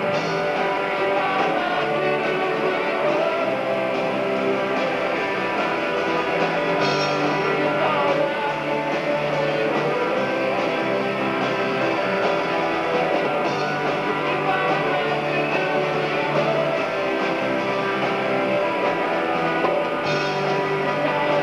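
Live rock band playing, guitar to the fore over bass and drums, with no clear singing.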